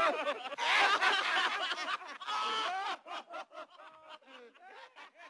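Voices laughing and snickering, the laughter dying away over the last few seconds.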